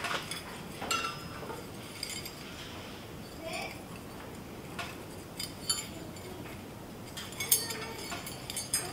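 Light metallic clinks and taps of a small hand-forged steel pipe tool with a ring handle knocking against a steel anvil horn. They come scattered, with a quick cluster of clinks near the end.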